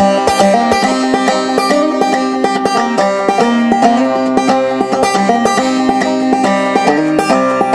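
Two five-string banjos played together in an instrumental break: a quick, steady run of plucked notes.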